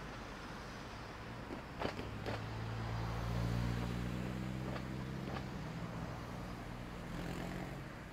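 A car driving past close by: its engine hum builds, is loudest about three and a half seconds in, then fades. Two sharp knocks come just before, about two seconds in.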